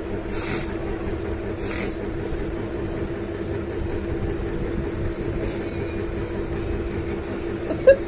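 A person trying to make themselves sneeze: two short breathy sniffs early on, then one brief, sharp, loud sneeze just before the end, over a steady low hum.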